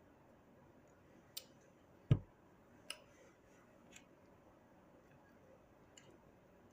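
Scattered light clicks of tableware and one louder, dull thump about two seconds in, from eating at a table.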